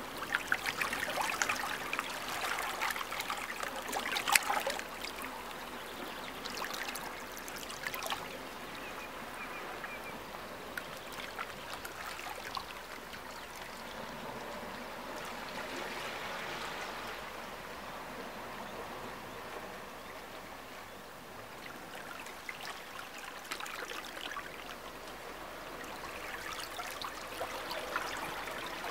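Shallow sea water lapping and trickling among shoreline rocks and stones, in a steady crackly wash of small irregular splashes. It is busiest in the first few seconds, with one sharper splash about four seconds in.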